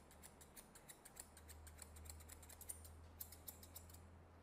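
Semi-toothed grooming scissors snipping the fur along a small dog's ear, a faint quick run of small snips, about five or six a second, easing off near the end.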